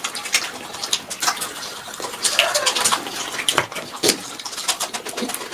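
Close-up eating sounds: wet chewing and lip-smacking with many irregular sharp clicks as a large fish head is eaten.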